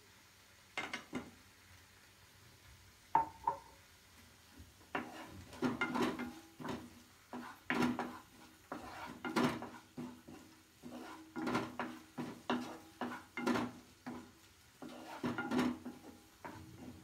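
A spoon stirring and scraping around a pan of thick sauce masala, knocking against the pan in repeated strokes, about one or two a second. Before the stirring, two short ringing metal taps come a few seconds in.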